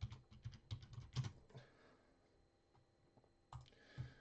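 Faint typing on a computer keyboard: a quick run of keystrokes for about two seconds, then a pause and two more clicks near the end.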